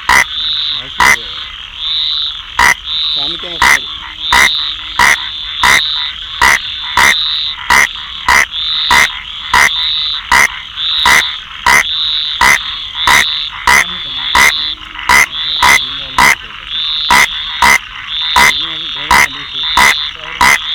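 Rain frog calling close up: short, sharp, loud calls repeated evenly about one and a half times a second, with a high hum swelling between them.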